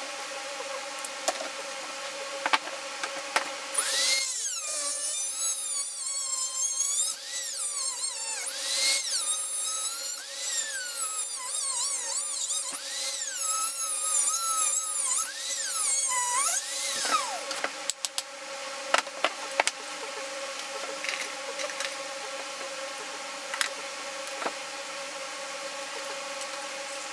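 A small high-speed power tool whining, its pitch sliding up and down again and again, from about four seconds in until about seventeen seconds, with a few sharp clicks before and after. A steady hum runs beneath it.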